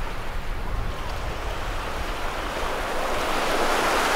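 Waves breaking on a sandy beach, one wash of surf swelling to its loudest near the end, with strong wind rumbling on the microphone.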